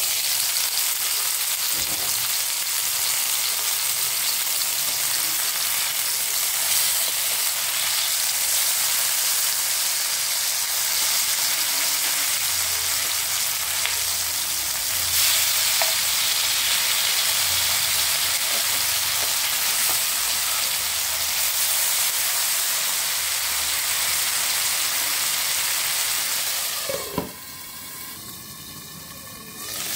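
Pomfret fish shallow-frying in hot oil in an open frying pan, a steady loud sizzle. Near the end the glass lid knocks down onto the pan and the sizzle turns muffled and quieter.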